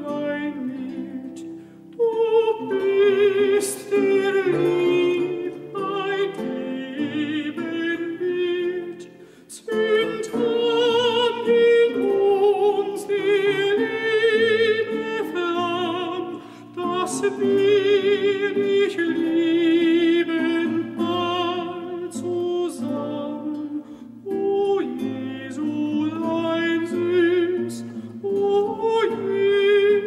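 A song sung with strong vibrato over instrumental accompaniment, in phrases with short breaths between them.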